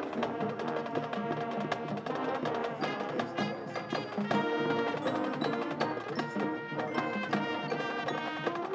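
High school marching band playing: brass and woodwinds sustaining chords over busy drums and mallet percussion, with many short sharp strokes. The band grows fuller and louder about four seconds in.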